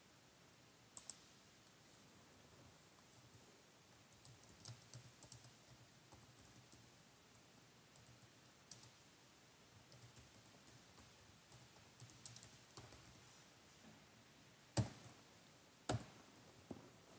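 Quiet room with faint, scattered clicks and ticks, busiest around four to five seconds in and twelve to thirteen seconds in. Three sharper clicks or knocks stand out: one about a second in and two near the end.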